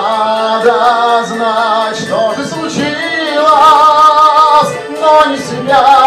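A man singing into a microphone over a karaoke backing track, with wavering held notes.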